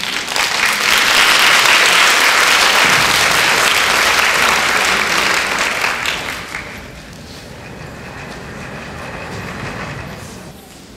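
Audience applauding, loud for about six seconds and then dying away.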